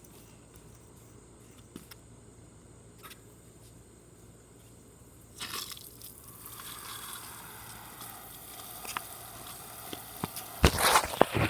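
Garden hose water starts running about halfway through, a steady hiss of spray, with a few loud splashing knocks near the end.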